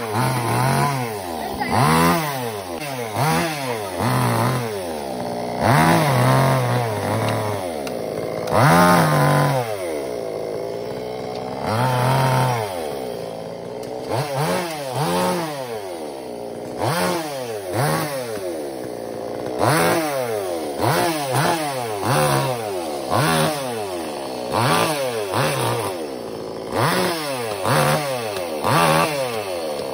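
Chainsaw engine revved up and down over and over, about once every second or so, with a few longer held revs in between.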